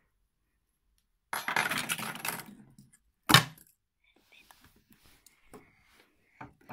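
Small hard objects clattering for about a second and a half, then one sharp, loud clink, like something dropped onto a hard surface, followed by a few faint clicks.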